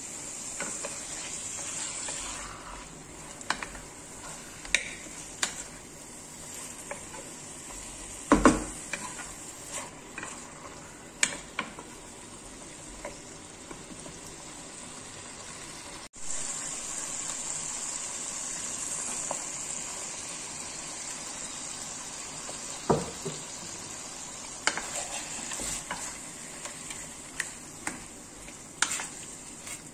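Chicken pieces and chopped carrot, onion and celery sizzling in oil in a terracotta pot, with a wooden spoon stirring and knocking against the clay. The loudest knock comes about eight seconds in, and the sizzle drops out for an instant about halfway through before going on.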